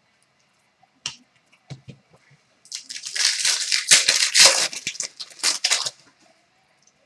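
Foil wrapper of a hockey card pack being torn open and crinkled: a few light clicks, then about three seconds of dense crackling in quick strokes.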